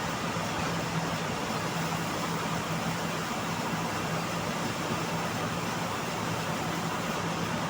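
Band sawmill running steadily: a constant low hum under an even hiss.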